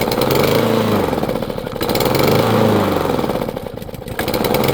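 Small lawn mower engine running, its speed rising and falling about every two seconds.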